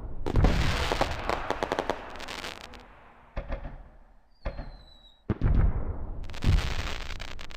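Aerial fireworks: several deep booms of shells bursting, the first and last followed by dense rapid crackling. A short falling whistle sounds about halfway through.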